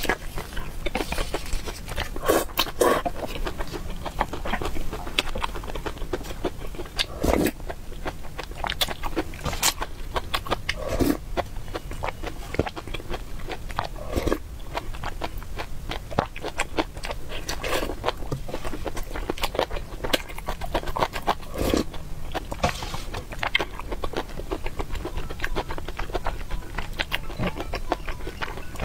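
Close-miked eating: biting into and wetly chewing soft food taken from a spicy broth, with sharp irregular mouth clicks and slurps throughout.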